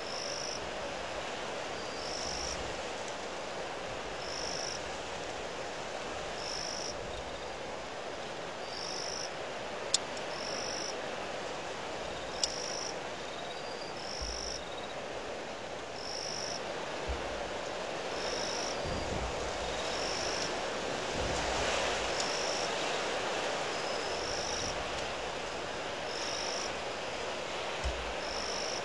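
Strong wind blowing steadily across the microphone, with low buffeting rumbles and a swell about twenty seconds in. A short high chirp from a small calling animal repeats about every two seconds, and two sharp clicks stand out around ten and twelve seconds in.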